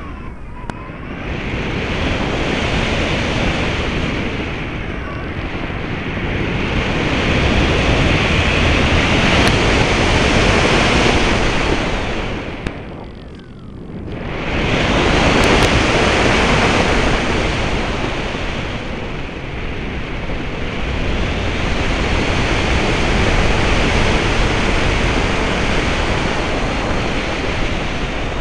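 Air rushing over the RC plane's onboard camera microphone in flight, a steady roar of wind noise with no motor whine. It swells and fades, dropping away briefly about halfway through before rising again.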